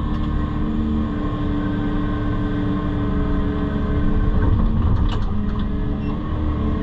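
Excavator's diesel engine running steadily while soil is moved for backfilling, with a few short clicks or knocks about five seconds in.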